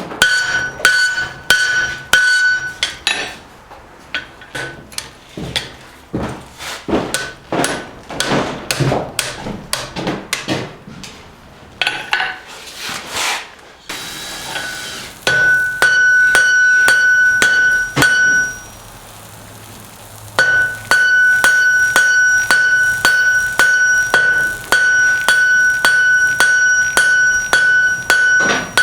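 Blacksmith's hammer striking hot steel on an anvil in a steady rhythm of about three blows a second. The first blows are duller; after a short break a little before the middle, each blow rings out with a clear anvil ring. There is one more pause of about two seconds later on.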